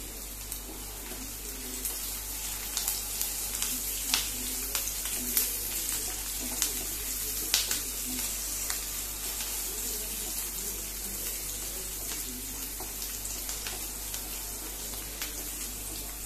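Chopped onions and green chillies frying in hot oil in a nonstick pan: a steady high sizzle with scattered sharp crackles as the pan is stirred.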